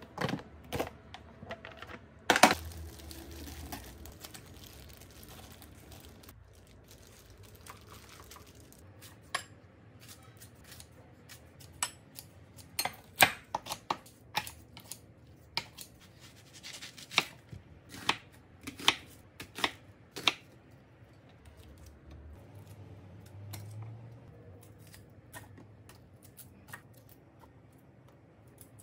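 Kitchen food-prep sounds: a loud plastic clack about two seconds in from the lid of a kimchi storage container, then kitchen scissors snipping kimchi in a bowl in a run of sharp snips, with soft handling sounds in between.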